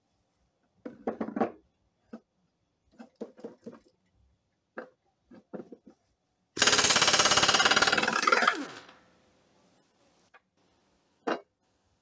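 Pneumatic impact wrench hammering loose the nut that holds a riding mower's blade to its spindle: a loud rattling burst of about two seconds just past the middle that winds down in pitch as it stops. Before it come several short bursts and knocks, and a single sharp knock near the end.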